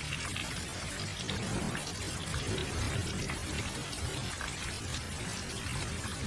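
Steady rain: many separate drops hitting a surface over an even hiss, with a low rumble underneath.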